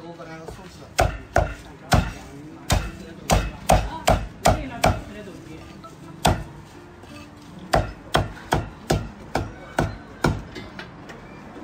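Meat cleaver chopping braised poultry on a thick round wooden chopping block: two runs of sharp, quick chops, about two to three a second, with a short lull between them.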